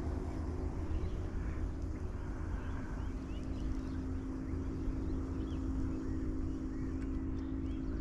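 Wind rumbling on the microphone over a steady low hum, with faint bird chirps now and then.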